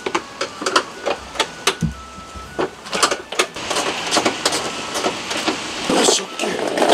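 Irregular mechanical clicking and knocking from work underneath a Mercedes-Benz's front bumper as it is fastened back onto the car, growing into a denser, noisier clatter over the last few seconds.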